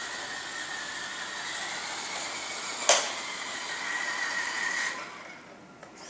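Small electric drive motor and gears of a radio-controlled toy wheel loader whirring steadily as it drives, with one sharp click about three seconds in. The whirring stops about five seconds in.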